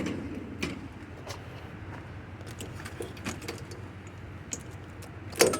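A few scattered light clicks and knocks, such as small pieces of scrap being handled and set down, over a steady low background hiss.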